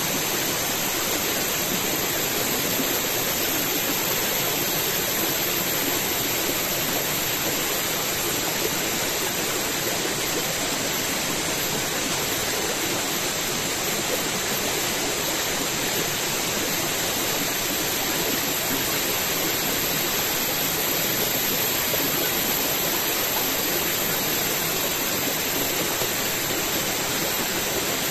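Small rocky forest stream flowing over stones: a steady rush of running water.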